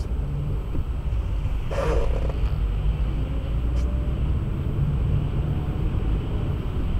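Steady low rumble of a car driving on the road, with a short, louder noise about two seconds in.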